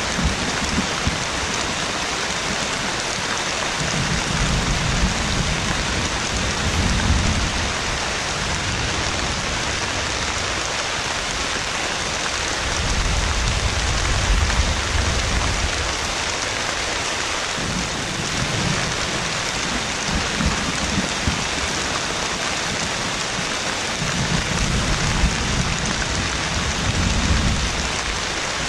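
Heavy rain falling steadily, with deep rolls of thunder swelling and fading about five times.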